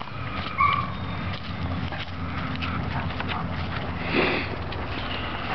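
A German Shepherd sniffing and moving about in dry grass and leaves. There is a brief high squeak about half a second in and a short burst of noise about four seconds in, over a steady low rumble.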